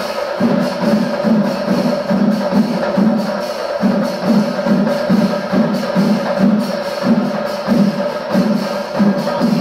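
Chenda melam ensemble, massed chenda drums with ilathalam cymbals, playing the kalasham, the climactic closing section of the melam. It is a loud, driving pulse of about two beats a second over a steady ringing tone.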